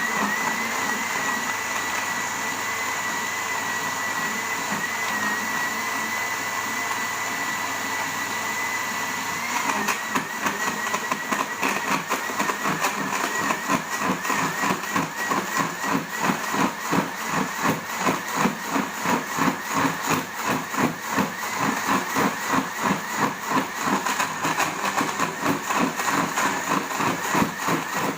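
Electric kitchen blender running, grinding limes, ginger and water. The motor gives a steady whine at first; about ten seconds in, the sound starts to pulse about twice a second as the mixture churns.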